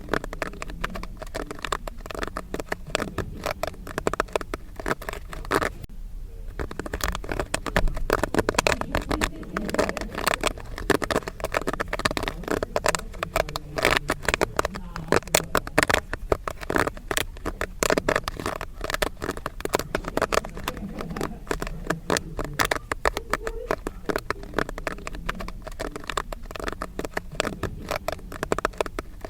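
Popcorn kernels popping rapidly: a dense, irregular crackle of many small pops, thinning briefly about six seconds in before picking up again.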